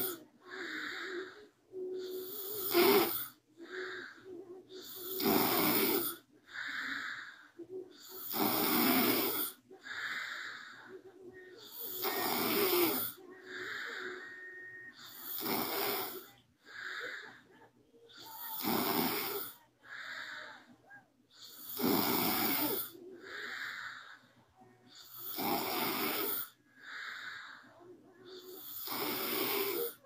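A young woman snoring in her sleep, close up: a loud snore alternating with a softer breath, one cycle about every three seconds, steady throughout.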